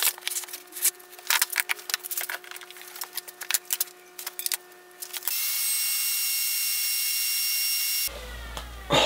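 Light clicks and taps of a metal ruler and square handled on a plywood disc for about five seconds, then a power tool running steadily with a high whine and hiss for about three seconds, which stops abruptly.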